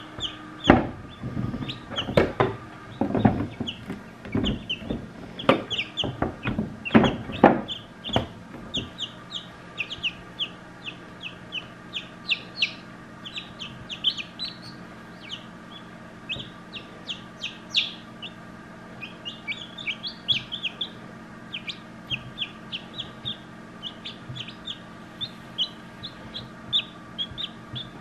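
Newly hatched chicks peeping: short, high cheeps repeated several times a second, over a faint steady hum. Knocks and rustling from handling come through the first eight seconds and are the loudest sounds.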